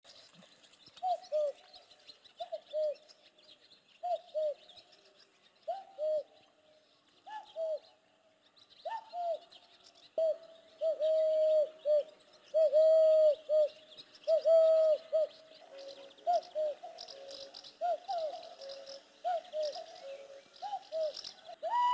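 Cupped-hand whistle: a man blowing into his cupped hands to make low, dove-like hooting coos. Short paired notes come about every second and a half, then longer held notes in the middle, then quicker notes near the end. Small birds chirp faintly behind.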